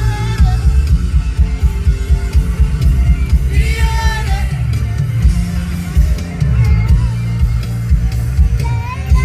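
Loud music with heavy bass and drums, and a voice singing over it; a sung line stands out about four seconds in.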